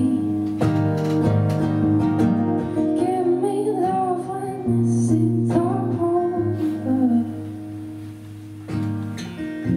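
A woman singing live over her own strummed acoustic guitar. The playing grows quieter in the last few seconds, with one more strummed chord near the end.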